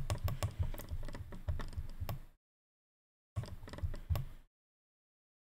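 Irregular clicks and ticks from a computer mouse and keyboard. They break off into dead silence about two and a half seconds in, resume for about a second, and stop again near the end.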